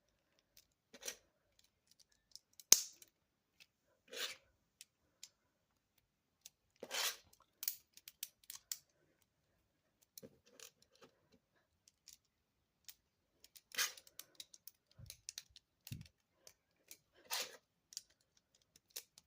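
Lego plates being pressed onto Lego bricks and handled: scattered plastic clicks and brief rustles of the pieces, with one sharp snap a little under three seconds in.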